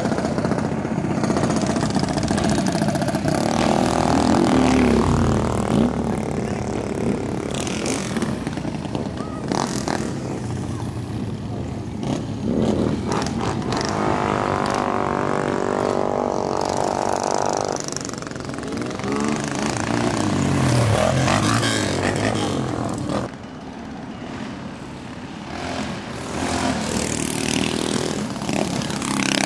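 Small mini bike engines running and revving, the pitch rising and falling repeatedly, with a quieter stretch a little past two-thirds of the way in.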